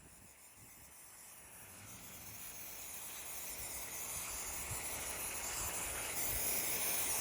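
Aerosol can of brake parts cleaner spraying onto a scooter's air filter: a steady hiss that grows gradually louder.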